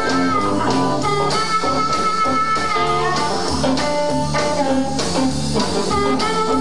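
Live blues band playing an instrumental passage, with electric guitar and a harmonica played through a hand-held microphone, its held notes bending.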